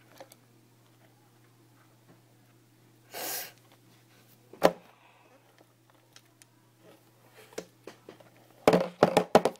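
Handling noise close to the phone's microphone: a short breathy hiss about three seconds in, a single sharp knock, then a quick cluster of sharp knocks and bumps near the end.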